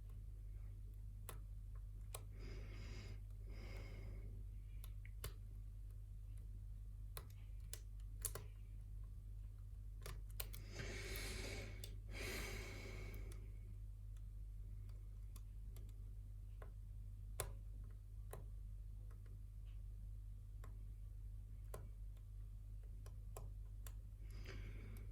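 Faint, sparse clicks of a lock pick and tension wrench working the pins inside a pin-tumbler lock. Two soft rushes of noise stand out, one a couple of seconds in and a longer one about halfway through, over a steady low hum.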